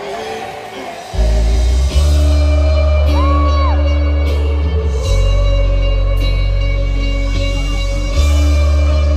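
Live pop band music with a male lead vocal, played through a stadium sound system. Heavy, sustained bass notes come in about a second in.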